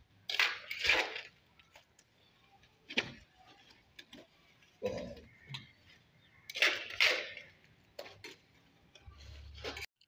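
Short scrapes and knocks of bricks and wet cement mortar being handled while laying a brick course, coming irregularly every second or two.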